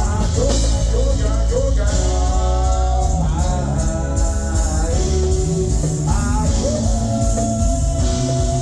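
Live band playing with a lead singer: the voice wavers through a phrase, then holds one long note near the end over guitar and a steady low backing.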